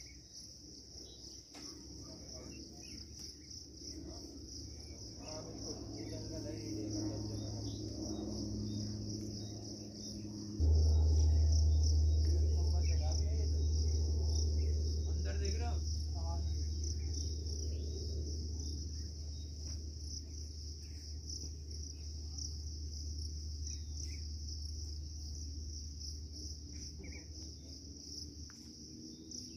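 A steady high-pitched insect chorus shrilling without a break. Under it a deep low rumble builds, jumps suddenly louder about a third of the way in, and then slowly fades away.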